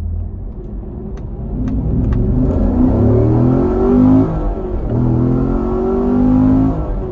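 C7 Corvette's V8, heard from inside the cabin, accelerating hard from low speed with a performance air filter: the revs climb, dip briefly about two-thirds of the way through, climb again and drop off near the end. The intake sound is throaty.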